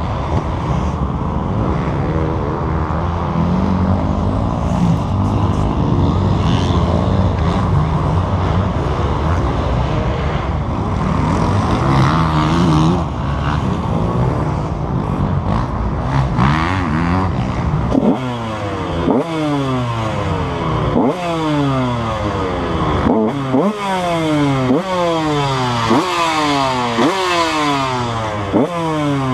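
KTM 150 SX two-stroke motocross engine being ridden hard: steady high running at first, then from about two-thirds in the revs repeatedly snap up and fall away, roughly once a second, as the throttle is worked on and off.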